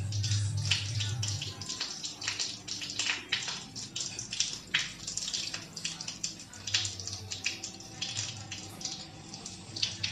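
Rain falling, with many irregular drops and splashes pattering throughout.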